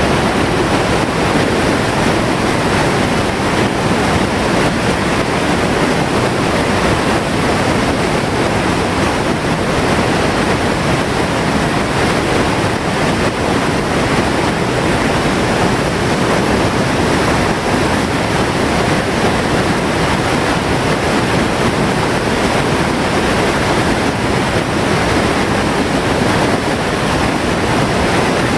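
Whitewater of a steep boulder-ledge rapid pouring over the drop in a loud, steady rush of falling water.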